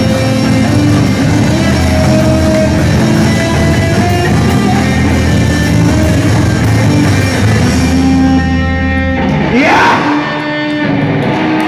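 Loud rock music with guitar. Just before the end, a rising sweep cuts across it, and then the music goes on thinner and a little quieter.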